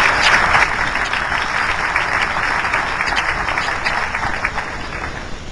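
Audience applauding, many hands clapping at once, the applause gradually fading toward the end.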